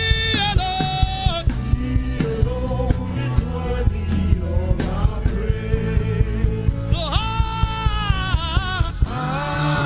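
A song with a steady beat and bass and a sung vocal melody, which comes in near the start and again about seven seconds in.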